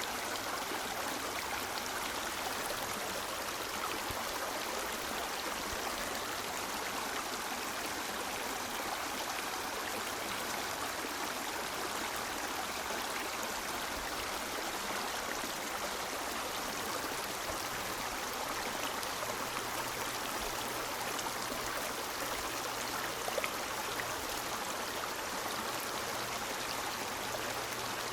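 River water flowing steadily over rocks, a continuous even rush of water.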